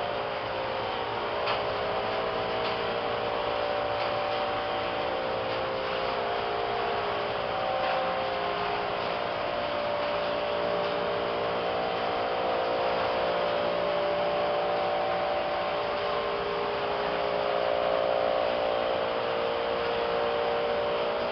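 Steady drone of ventilation fans and machinery, with a hum whose tones swell and fade every few seconds.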